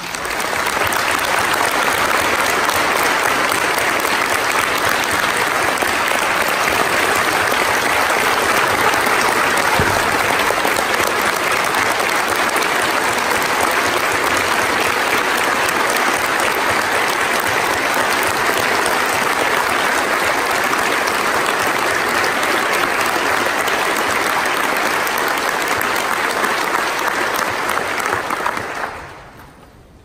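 A large audience clapping in sustained applause, steady throughout and dying away near the end.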